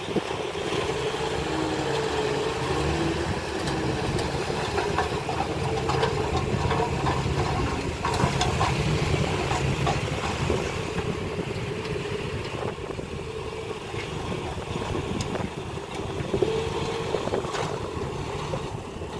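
Diesel engine of heavy earthmoving machinery running steadily, with a few sharp clanks.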